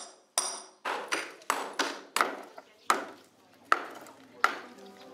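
Hand hammers striking and breaking up the concrete cover of a tomb: about ten sharp blows at an uneven pace, some with a brief metallic ring.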